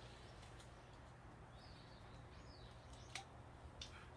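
Near silence: a low background hum with a few faint, brief high bird chirps and two or three light clicks.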